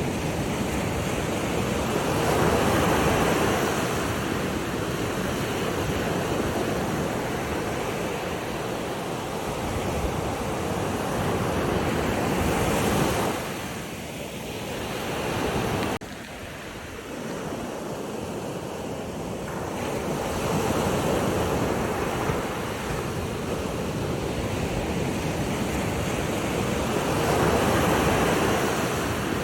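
Sea waves breaking and washing in, the rush swelling and easing every several seconds, with wind on the microphone. The sound drops off sharply about halfway through, then builds again.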